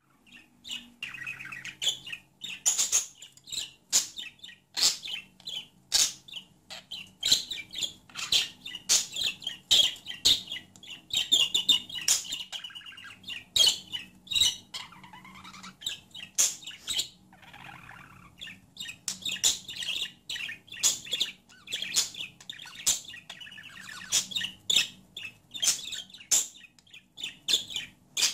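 Budgerigar warbling and chattering: a continuous stream of rapid chirps and clicks, with a few lower warbling phrases around the middle.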